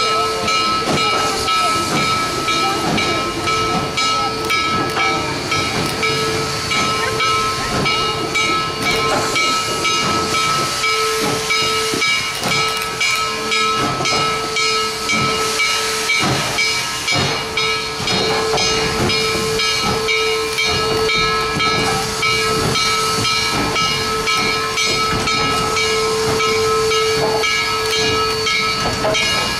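Steam locomotive No. 734 hissing steam continuously as it creeps onto a turntable, a steady loud hiss with several high, unchanging tones running through it.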